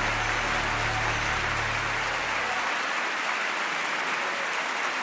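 Audience applause at the end of a live gospel choir recording. The last low held note of the accompaniment dies away a little over halfway through.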